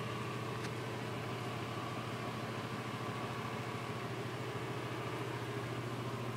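Steady electric hum of a bathroom exhaust fan, unchanging throughout, with a thin stream of water running from the sink faucet beneath it.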